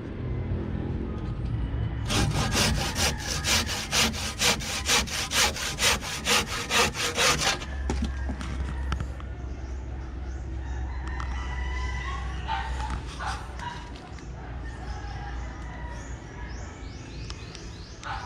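A hand saw cutting through wood in quick, even back-and-forth strokes, about two or three a second for some five seconds. A rooster crows later on.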